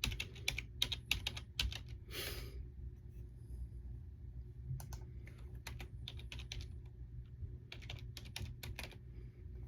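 Typing on a computer keyboard: several short runs of keystrokes separated by pauses, over a faint low hum.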